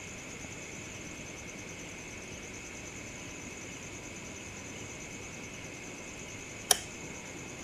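Crickets chirping steadily in a continuous high trill, with a single sharp click near the end.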